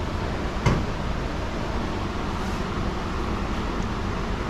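Steady background hum of a repair shop, with one sharp click of a part or tool about two-thirds of a second in.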